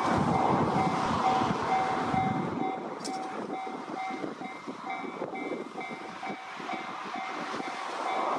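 Japanese level-crossing warning bell ringing, an electronic ding repeating about three times a second, while a train runs past over the crossing; the train's low rumble eases off after a couple of seconds.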